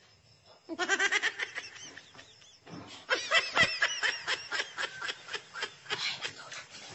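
Women laughing in high-pitched, rapid giggles, in two bouts: one starting about a second in, and a louder, longer one from about three seconds in.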